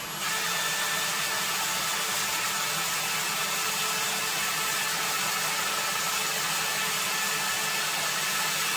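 Kobalt cordless drill running steadily under load, drilling a hole with a small bit into a metal pulley; it starts just after the beginning and stops near the end.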